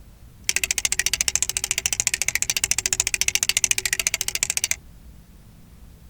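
Flip dot clock display clicking: its electromechanical dots flip one after another in a fast, even run of sharp clicks, starting about half a second in and stopping after about four seconds as the display changes its pattern.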